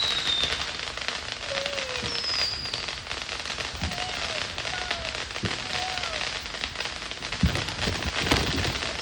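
Fireworks crackling in a dense, continuous patter of small pops, with several short falling whistles and a couple of heavier bangs near the end.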